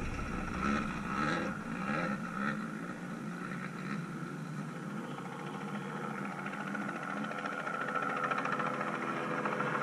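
Off-road race car engines at a distance: an engine revving unevenly as it moves away over rough ground and fades, then a steadier engine drone that grows louder near the end.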